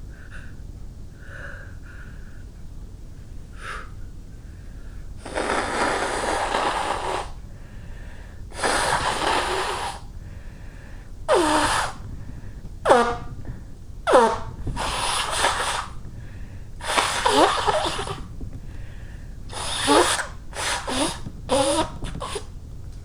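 A woman blowing her nose hard about nine times in a row: two long noisy blows, then a run of shorter ones, several of which honk with a pitch that drops sharply at the end.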